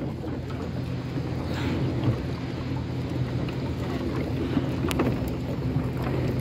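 A boat engine running steadily out on the water, with a wash of wind and water around it; one sharp click about five seconds in.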